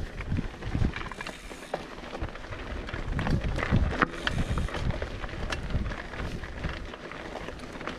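Wind buffeting the microphone on a mountain bike ride, an uneven low rumble, with scattered clicks and rattles from the bike over rough ground.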